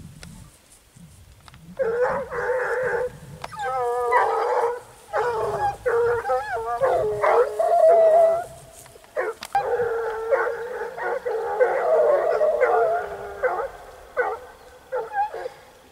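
A pack of hare hounds giving tongue, several voices baying together in repeated bouts. It starts about two seconds in and thins out near the end. The hounds are baying on a hare's scent.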